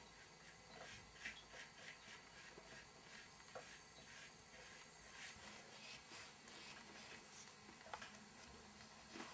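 Near silence, with faint, irregular scratches and small ticks of a paintbrush working paint onto a papier-mâché surface.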